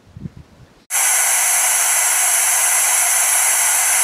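Loud, steady static hiss like an untuned television's snow. It cuts in suddenly about a second in.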